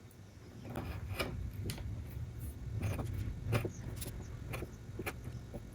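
A hand tool cutting chips out of a wooden table leg: a series of sharp clicks, about two a second, over a low rumble. The tool is deepening a shoulder at the dovetail line so a handsaw has a groove to start in.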